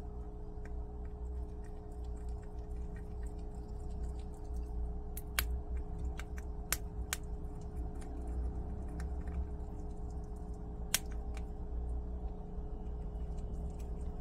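A prairie dog cracking and chewing small hard wild soybeans: irregular sharp crunches and clicks, with a few louder cracks, over a steady low hum.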